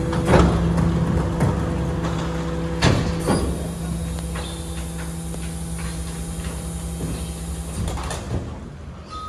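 BYD electric rear-loader garbage truck's hydraulic packer and bin lift running with a steady hum, with loud clanks of bins and waste hitting the hopper a few times in the first few seconds. The hum stops near the end.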